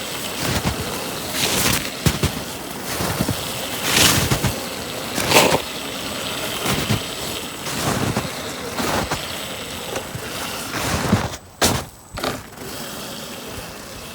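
Snow crunching and rustling in irregular bursts about once a second, dropping away briefly near the end.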